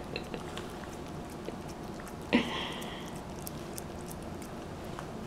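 A cat licking and chewing wet food from a plate: faint, quiet wet clicks, with one brief louder sound a little over two seconds in.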